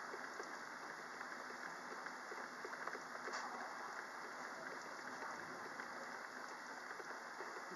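Steady rain falling in a thunderstorm: an even hiss with many small ticks of drops through it.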